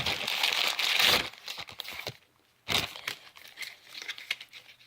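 Packaging of a new Skewb puzzle crinkling as it is handled and opened. There is a dense crinkle for about the first second, then scattered rustles and clicks, with a short near-silent gap about halfway through.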